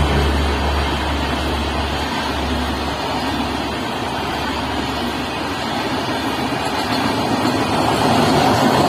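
Express passenger train's coaches passing at speed close by: a steady rush and rumble of wheels rolling on the rails. The low hum of the WAP7 electric locomotive fades away over the first few seconds.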